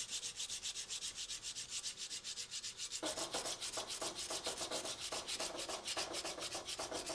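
Sandpaper worked back and forth by hand along a steel axe edge in quick, even strokes, refining the edge after filing has raised a burr along it. From about three seconds in the strokes sound fuller and lower.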